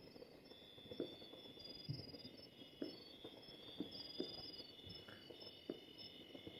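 Distant gunshots and firecrackers going off in irregular dull pops, roughly one or two a second, over a steady chorus of crickets chirping.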